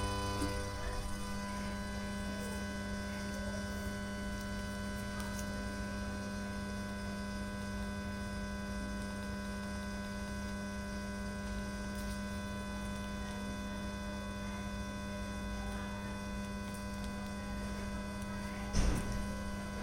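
A speaker driven by a faulty Lepy LP-2020 class-T mini amplifier gives off a steady hum and hiss with several constant whining tones. The owner says it keeps going even at volume zero with the input removed, the sign of a defective amplifier. A brief thump comes near the end.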